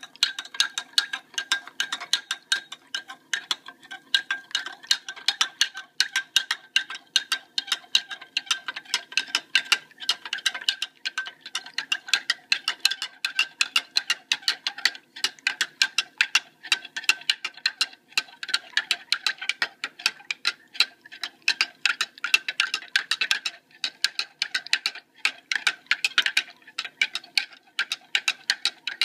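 Metal spoon clinking rapidly against the inside of a drinking glass while stirring, several strikes a second, with the glass ringing on a steady note.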